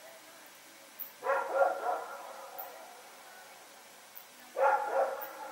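A dog barking in two short volleys of quick barks, one about a second in and another near the end.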